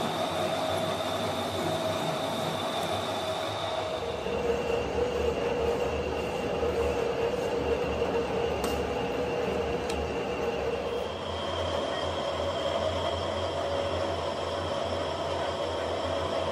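Metal lathe running, its cutting tool turning and threading a steel crane hook shank, with a steady whine from the cut over a low machine hum. The whine shifts in pitch twice, about four seconds in and again near eleven seconds.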